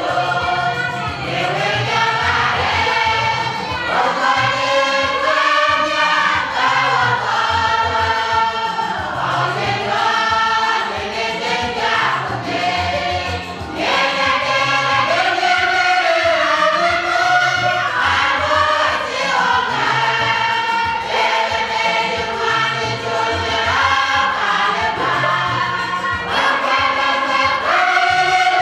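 A choir of women and men singing a gospel song together, loud and continuous.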